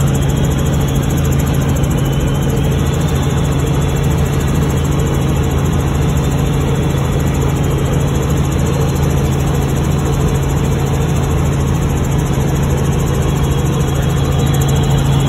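Helicopter in flight heard from inside the cabin: a loud, steady mix of engine and rotor noise with a strong low hum, unchanging throughout.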